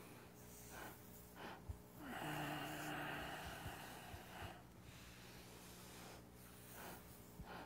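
A person's slow, audible breath, one long breath starting about two seconds in and lasting a couple of seconds: controlled breathing paced with a qigong movement.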